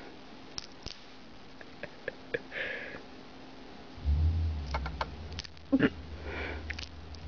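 Pet hedgehog chewing a treat with its mouth open: scattered soft clicks and smacks, with a few short breathy sniffs. A low rumble comes in about four seconds in.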